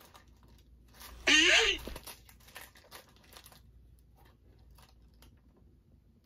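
Tissue paper and a plastic snack wrapper rustling and crinkling as hands rummage through a cardboard snack box, in scattered small crackles. A brief wordless vocal sound a little after a second in is the loudest thing.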